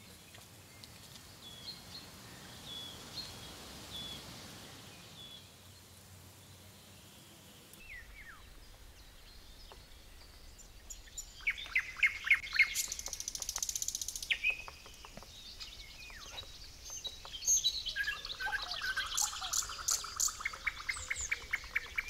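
Wild songbirds singing in woodland: faint scattered chirps at first, then from about halfway through loud, rapid trilled phrases and high chirps from more than one bird, with a lower fast trill near the end.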